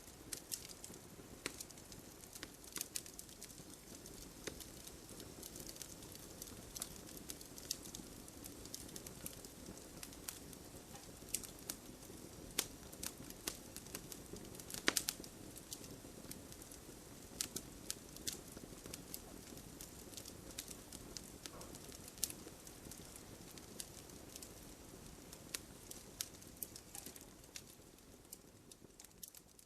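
Campfire burning: wood crackling with irregular sharp snaps and pops over a soft steady rush of flame, with one louder pop about halfway through.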